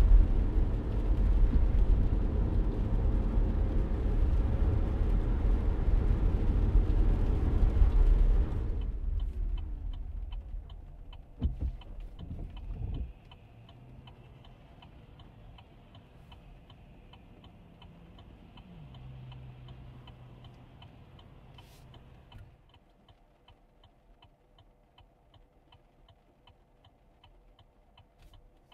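Car cabin noise while driving, a steady low road rumble, which fades away about a third of the way in as the car slows to a stop. A couple of dull thuds follow, then the turn signal ticks steadily over a faint low engine hum.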